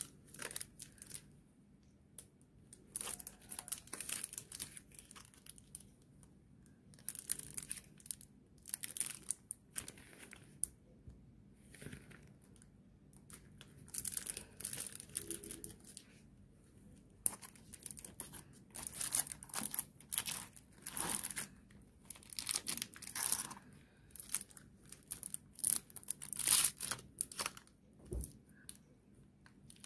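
Clear plastic brush sleeves crinkling and rustling under rubber-gloved fingers as makeup brushes are worked out of them, in irregular bursts with short pauses between.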